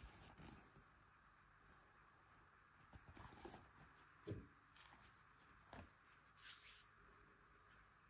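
Near silence, with a few faint rustles and soft knocks of the stitched test cloth being handled and laid down on the sewing table.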